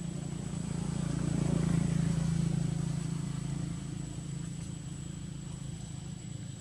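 A motor vehicle engine drones, growing louder about two seconds in and then easing off, as if passing by. A thin, steady high-pitched tone sounds throughout.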